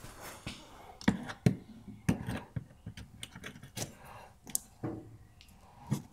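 Plastic push clips being pried out of a car's inner wheel-arch liner: a string of irregular sharp clicks and snaps, a few of them louder.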